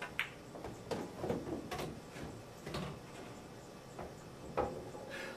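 A pool cue tip strikes the cue ball with a sharp click, followed over the next few seconds by several clicks and knocks as the balls collide and roll on the table.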